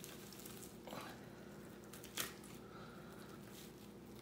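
Faint wet squishing and peeling of raw venison as the tough silver skin membrane is worked back off the meat by hand, with one short louder rasp about two seconds in.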